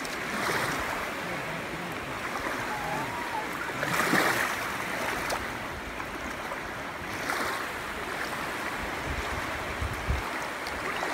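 Small waves lapping at the shore of a calm sea: a steady wash that swells about every three to four seconds.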